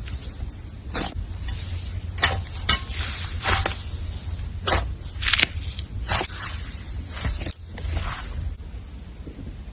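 Slime being handled, giving irregular short crackles and squelches over a steady low hum.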